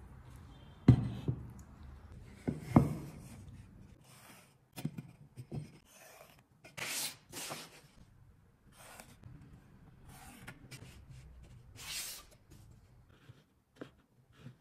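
Hand work on wooden pieces: a few sharp knocks in the first three seconds, then several short scratchy strokes.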